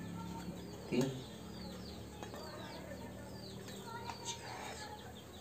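Small birds chirping repeatedly in the background, short high downward chirps over a faint steady hum, with one brief louder call about a second in.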